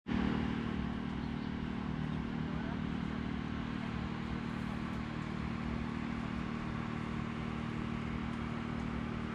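Steady low hum of a running motor, holding one pitch, over an even rushing noise.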